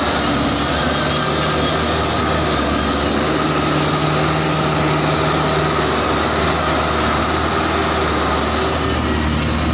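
Vehicle engine running with a steady low drone.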